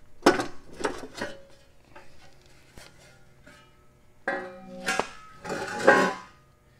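Steel belt cover of a zero-turn mower deck being lifted off and set aside: light metal clinks and knocks at first, then a ringing metal clang and a louder scraping clatter near the end.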